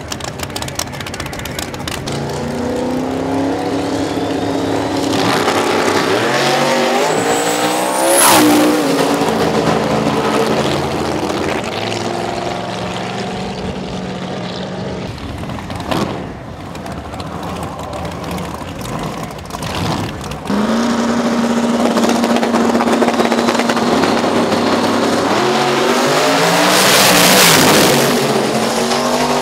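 Drag race cars at full throttle on the strip. One car's engine climbs in pitch and peaks loudly about eight seconds in as it passes, then fades. About twenty seconds in a second run starts abruptly and builds to another loud peak near the end.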